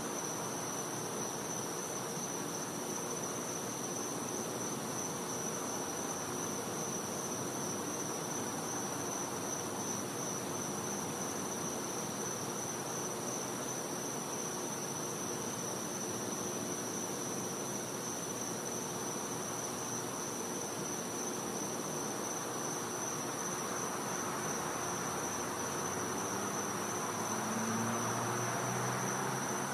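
Night insect chorus: a steady, unbroken high-pitched trill from insects the recordist calls cicadas. A low rumble swells in briefly near the end.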